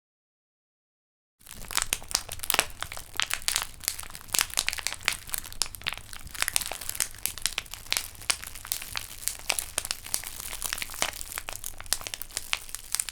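Campfire crackle made by crumpling and flexing a plastic PET bottle: dense, irregular crackles and pops over a low rumble. It starts suddenly about a second and a half in, after silence.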